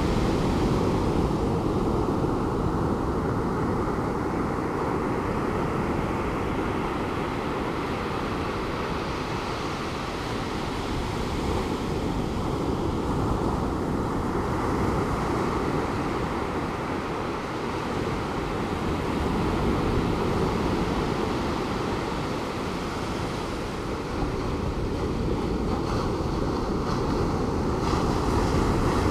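Calm Pacific Ocean surf breaking on the beach, a steady wash that swells and eases slowly, with some wind noise on the microphone.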